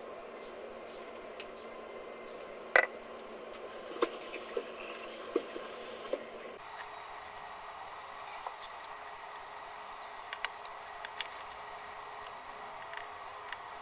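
Scattered light clicks and taps as fingers work biscuit crumbs around the edge of a cheesecake in a glass baking dish, over a steady background hum. The sharpest click comes about three seconds in.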